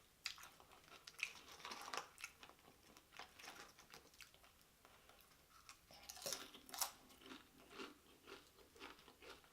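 A person chewing loaded nachos, tortilla chips crunching in the mouth in a quick run of small crunches. It is faint, with louder crunches about two seconds in and again around six to seven seconds.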